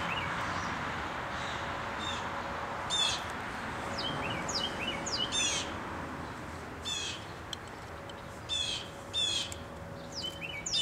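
Wild songbirds calling: short chirps and quick trilled phrases repeated every second or two, over a steady outdoor hiss.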